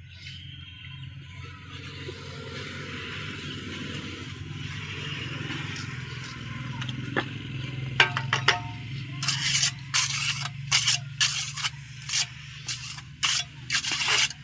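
A steady low hum with a rising hiss, then from about halfway through a run of about nine short, rough scraping strokes at an irregular pace.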